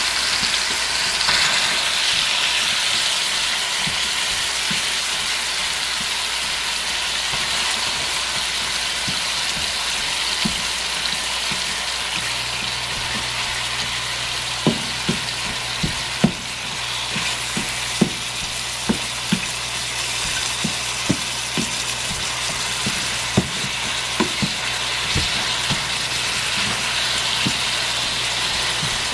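Ground beef sizzling as it browns in a skillet, a spatula chopping and stirring it. From about ten seconds in there are scattered sharp taps and scrapes of the spatula against the pan.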